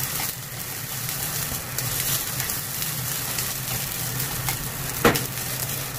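Steamed yakisoba noodles sizzling steadily in sesame oil in a nonstick frying pan as they are turned with wooden chopsticks, searing until crisp and browned. There is one sharp knock, likely the chopsticks against the pan, about five seconds in.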